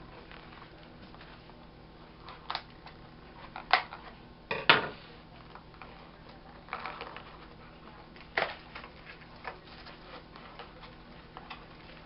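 Cookware pieces and packaging being handled and unpacked: scattered clicks and knocks, the loudest a close pair about four and a half seconds in.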